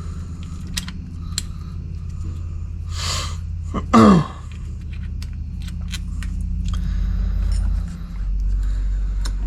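A person sneezes once, about three to four seconds in: a sharp intake, then a loud call falling in pitch. Around it, scattered light clicks of small metal parts being handled over a steady low hum.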